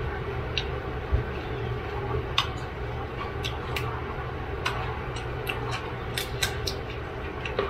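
Steamed blue crab shells being cracked and picked apart by hand: irregular sharp little cracks and clicks, with a dull thump about a second in, over a steady low hum.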